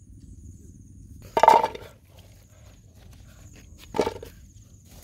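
Okra pods dropped into an empty aluminium cooking pot: two knocks on the metal, a louder one about a second and a half in and a smaller one about four seconds in.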